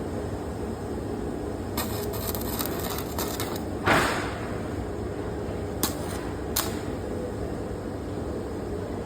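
Welding work: a steady hum throughout. Partway through comes a couple of seconds of irregular crackling, then a single sharp knock that rings briefly, and two short clicks after it.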